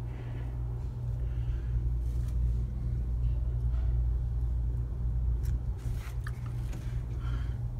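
A steady low rumbling hum, with a few faint clicks about five to six seconds in.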